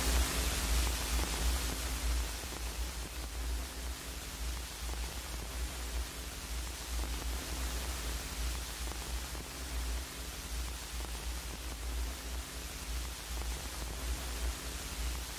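Steady hiss and low rumble of a vinyl record's surface noise with no music on it, as the last of the soundtrack dies away in the first couple of seconds.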